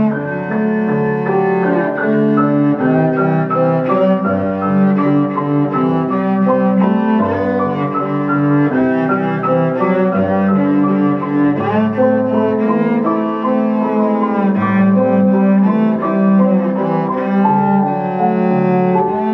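A cello and a piano playing a cello sonata together: a bowed cello line over piano accompaniment, the notes changing continuously.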